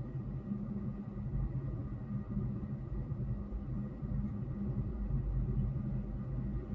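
Low, steady rumble of road traffic on the roads far below, muffled through a closed window.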